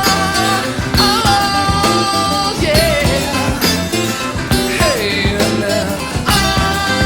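Background music: an upbeat rock song with guitar, a steady beat and a singing voice.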